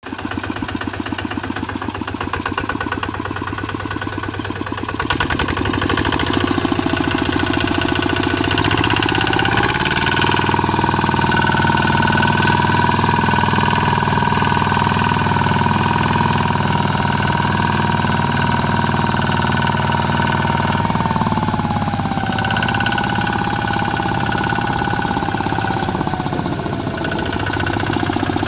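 Two-wheel walking tractor's single-cylinder diesel engine running under way, with a steady chugging that grows louder about five seconds in. A steady high whine sits over it from about ten seconds in and dips in pitch twice toward the end.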